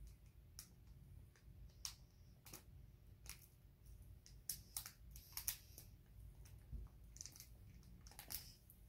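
Faint, irregular crinkles and taps of a small plastic packet being squeezed and shaken to empty snow powder into a plastic mold.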